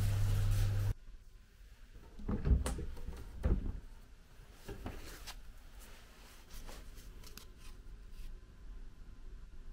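A steady lift hum that cuts off about a second in. Then a wooden cabinet drawer or door is opened, with two low knocks and some lighter clicks and handling noises.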